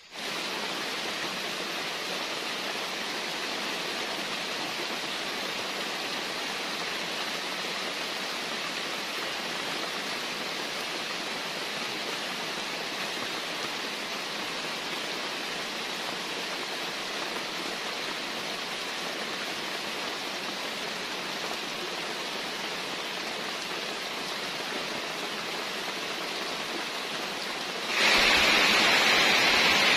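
Steady rushing of water in a rainforest that jumps louder about two seconds before the end, where heavy rain is pouring down on the forest.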